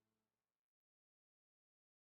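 Silence: the last of the background music fades out within the first half second.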